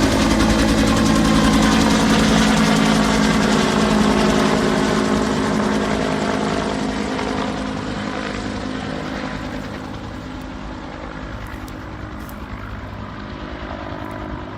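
NC Forest Service firefighting helicopter flying, its rotor beat and engine whine steady at first, then fading as it moves away over the second half.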